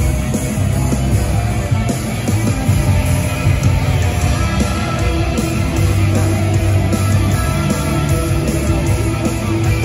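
Loud hard-rock music with electric guitar and a driving beat.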